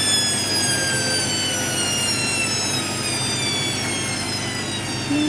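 Hoover WDYNS654D washer dryer's drum motor whining as the drum slows, its pitch falling steadily and evenly.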